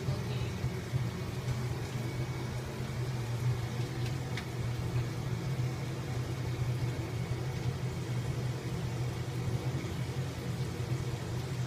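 A steady low mechanical hum, with a faint click about four seconds in.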